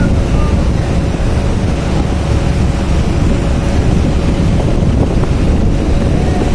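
Wind buffeting the microphone over a steady low rumble from the moored car ferry, with a faint steady hum.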